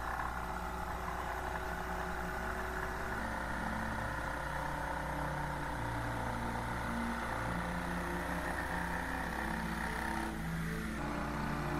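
Jigsaw running and cutting through plywood, with a short break and change in the sound about ten seconds in.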